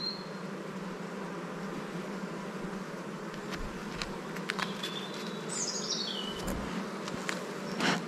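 Honeybees buzzing in a steady hum over an open, crowded hive. A few faint clicks and one short high chirp falling in pitch come in past the middle.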